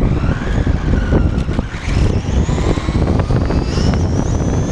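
Sensored brushless electric motor of a Losi 22 RC buggy whining as the car accelerates, the whine climbing steadily in pitch from about two seconds in. Under it a heavy rumble of wind and rough tarmac on the uncased onboard camera's microphone.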